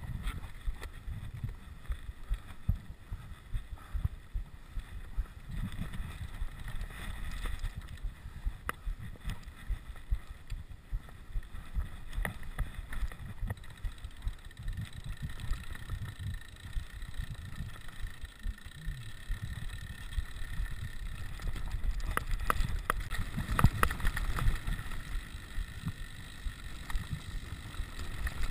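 Riding noise from a rigid 29er mountain bike on a rough track: a low rumble of wind buffeting the camera microphone and bumps from the ground, with frequent small rattles and knocks from the bike. It gets louder and rattlier for a few seconds past the middle.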